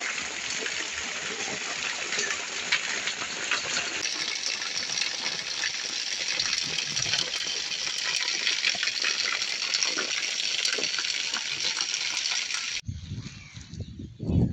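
Heavy rain falling hard, with water gushing from a wall drainpipe onto a brick lane. The rain noise cuts off abruptly near the end, leaving a few low thumps.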